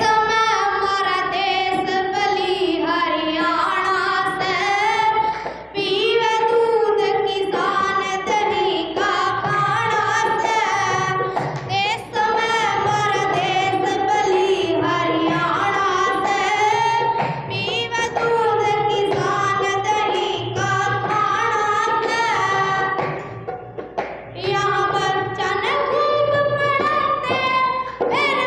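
A girl singing a Haryanvi folk song (geet) into a handheld microphone, in long held, wavering phrases with brief pauses between them.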